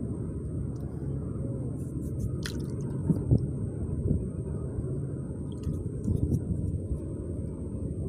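Steady low outdoor rumble, with a few faint ticks.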